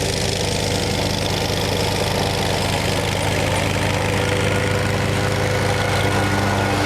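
Kawasaki FX850V 31-horsepower V-twin engine of a Wright 61-inch ZK stander zero-turn mower, running steadily.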